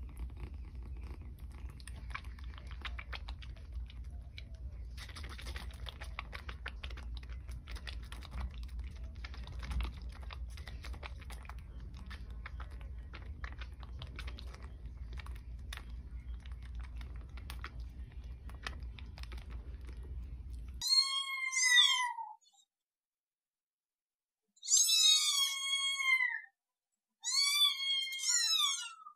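A kitten purring with a steady low rumble while suckling from a feeding bottle, with fine clicking from its sucking. After about 21 seconds this stops abruptly, and an adult cat meows loudly four or five times, each call rising and then falling in pitch.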